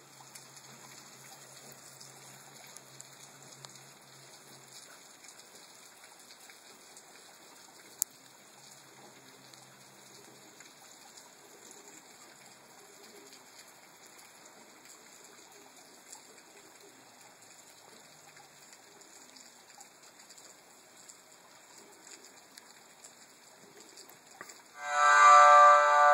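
Steady rain falling on a wet street and pavements: a soft hiss with small drip ticks, and one sharp click about eight seconds in. Near the end a much louder ringing chime with several pitches starts and keeps going.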